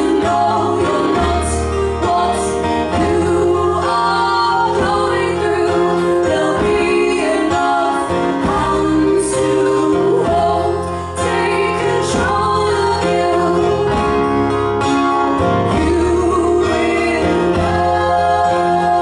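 Live acoustic music with strummed guitar and women's voices singing.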